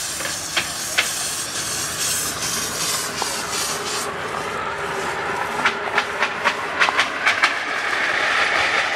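7.5-inch gauge live steam locomotive, Southern Pacific 521, hissing steam, with a few sharp clicks early on and a quick run of clicks a little past the middle.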